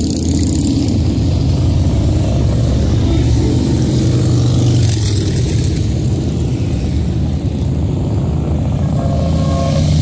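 Several motorcycle engines running loudly and steadily as bikes ride past.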